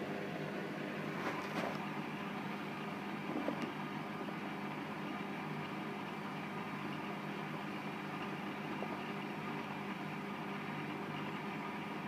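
Hotpoint WML560 washing machine running with a steady hum, with a few light clicks about one and a half and three and a half seconds in.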